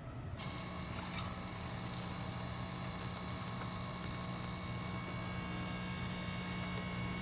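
DeLonghi Magnifica S superautomatic espresso machine cutting in about half a second in and running with a steady, even hum as it brews an espresso shot.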